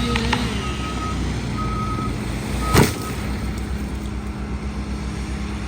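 Diesel work machine running, with its reversing alarm beeping about once a second until about halfway through. A single loud thump or knock lands near the middle.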